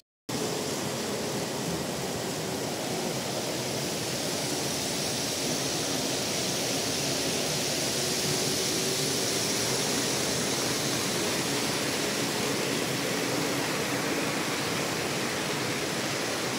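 Steady, even background noise of a large exhibition hall, a dense hiss-like wash with no distinct events, starting after a split-second dropout.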